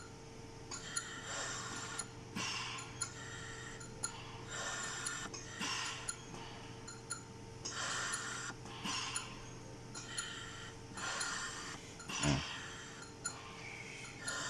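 Siemens Servo 300 mechanical ventilator cycling breaths: a hiss of gas flow for each inflation and release, paired and repeating about every three seconds over a steady low hum, while its expiratory tidal volume reading settles during calibration. A single soft thump about twelve seconds in.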